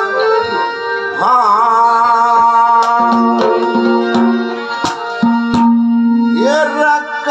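Haryanvi ragni: a man sings long, drawn-out notes with wavering glides over sustained harmonium-like accompaniment. Scattered sharp hand-drum strokes fall in the middle of the passage.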